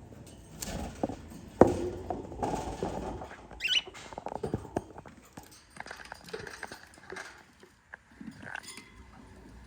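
Irregular knocks, scratching and rustling from handling around a cockatiel nest box, with one sharp loud knock about one and a half seconds in. A short rising cockatiel chirp comes near the four-second mark.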